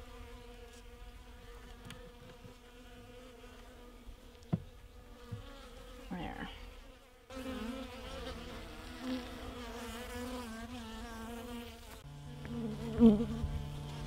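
Honeybees buzzing in an open hive, a steady hum with a few brief swells in pitch and level. Two light knocks come about four and a half and five seconds in.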